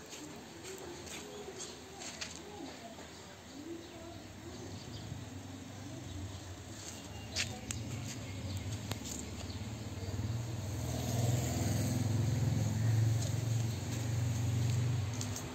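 Outdoor background sound: faint voices and bird chirps with scattered clicks, then a low engine hum that swells over the last third.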